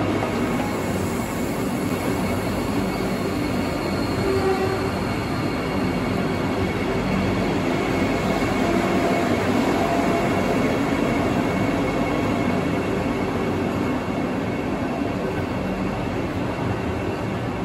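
Vande Bharat Express electric train-set running past along a station platform: steady wheel-on-rail and running noise from the moving coaches.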